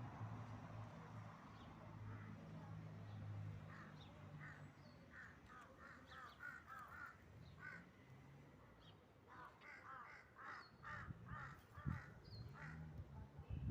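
Faint birds calling in two quick runs of short, repeated notes, one group near the middle and another later on.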